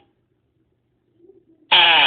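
Quiet at first, then near the end a loud fart sound starts: a pitched tone that wavers as it goes.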